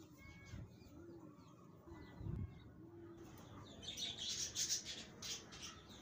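Outdoor birdsong: a low call repeated several times, with a soft thump about two seconds in, then a burst of high, rapid chirping from small birds in the second half, which is the loudest part.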